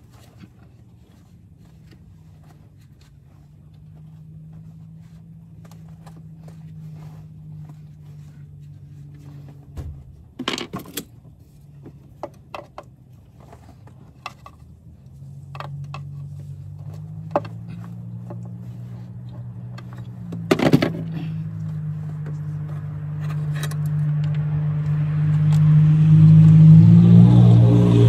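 Metal clicks and clinks of hand tools and hardware being worked under the hood, a few sharp ones standing out. Behind them a motor vehicle's engine hums, growing steadily louder toward the end.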